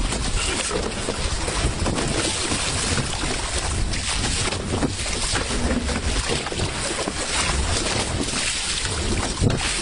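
Wind buffeting the microphone: a steady rushing noise with a gusting low rumble.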